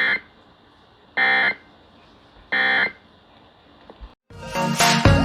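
Emergency Alert System end-of-message data bursts: three short, harsh digital chirps about a second and a quarter apart, the coded signal that closes the alert test. Music starts about four seconds in.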